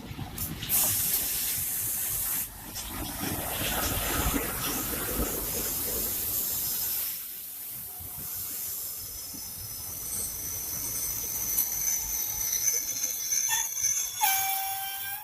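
Express train running through the station without stopping: a loud rush of the passing coaches for the first several seconds, then a quieter rolling rumble with thin high whistling tones. About fourteen seconds in, a horn sounds briefly and cuts off abruptly.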